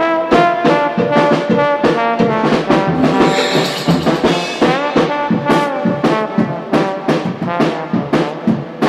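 Background music: an upbeat brass tune with trombone-like sliding notes over a steady drum beat.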